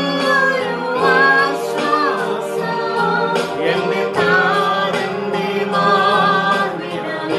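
Music: a song with singing voices over instrumental accompaniment.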